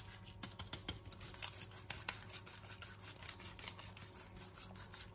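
Pan of rice and water bubbling on the hob: an irregular run of small pops and clicks over a faint steady hum.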